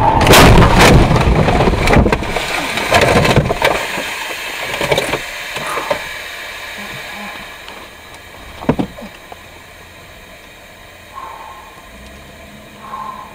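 Car collision heard from inside one of the cars: a loud crash of impact, crunching and rattling for about four seconds, then dying away. A single sharp crack follows a few seconds later.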